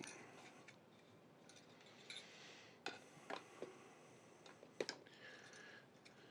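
Faint clicks and light knocks of computer parts being handled, with a few sharper clicks in the middle.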